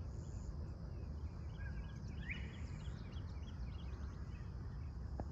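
Many small songbirds chirping, with one clearer rising call about two seconds in, over a steady high insect drone and a constant low rumble.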